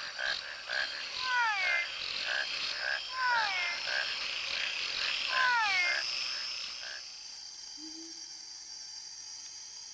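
Chorus of rainforest animals calling to mark territory and attract mates: a falling whistled call repeats about every two seconds among quick short notes, over a steady high insect drone. The calls stop about seven seconds in, leaving the drone.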